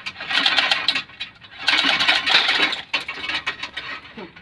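Hand ratchet wrench clicking in quick strokes about a second long, three strong ones and a weaker fourth near the end, as a bolt is worked on.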